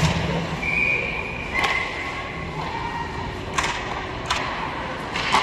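Sharp cracks of hockey sticks and pucks, about four of them spread a second or so apart, ringing in the ice arena.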